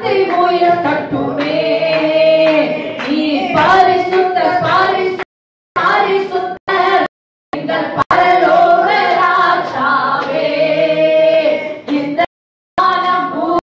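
Women's voices singing a Tamil Christian worship song. The sound cuts out abruptly to silence several times for a moment.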